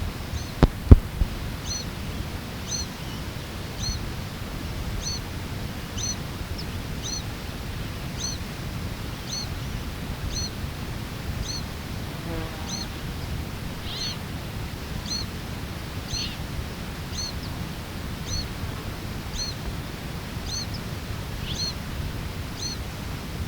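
A fledgling bird chick calling incessantly with the same short, high, screechy note, about once a second. Three sharp knocks come a little under a second in and are the loudest sounds.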